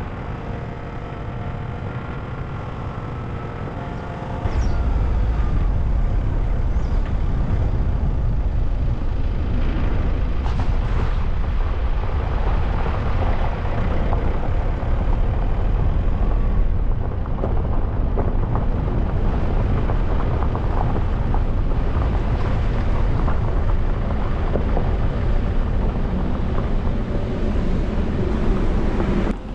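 Car driving on the road: steady engine and road noise that grows louder about four seconds in, then cuts off suddenly just before the end.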